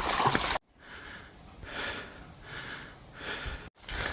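A hiker breathing hard, about four heavy breaths less than a second apart, from exertion on a steep uphill trail. Abrupt cuts frame it: loud creek-side water noise for the first half second and again near the end.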